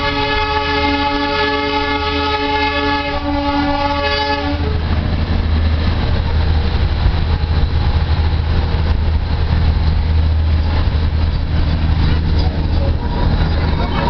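A horn sounds one long steady note for about four and a half seconds, then stops. Under it and after it the Darjeeling Himalayan Railway toy train runs with a steady low rumble, heard from inside the carriage.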